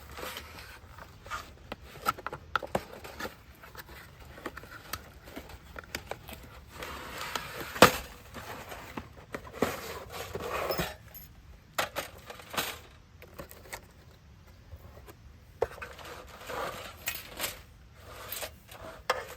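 Intermittent clicks, knocks and rustling of objects being handled, with one sharp knock about eight seconds in.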